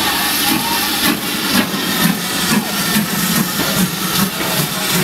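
GWR 5101-class large Prairie 2-6-2 tank engine No. 5199 chuffing as it moves under steam, exhaust beats about twice a second over a steady hiss of steam.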